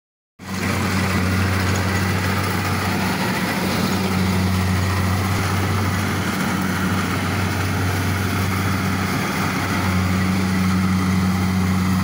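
Kubota tracked rice combine harvester running steadily while it cuts and threshes rice: a steady low diesel engine hum under a dense whirring machinery noise. The hum fades a little for a few seconds around the middle, then comes back.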